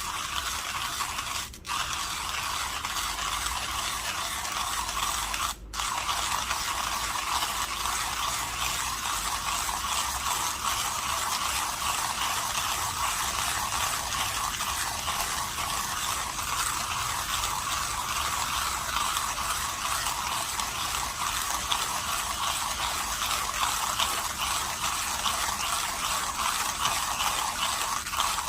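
Saint Anthony Industries Millwright manual burr grinder grinding coffee beans as its handle is cranked, set fine for espresso: a continuous gritty crunching rasp. It breaks off twice very briefly in the first six seconds.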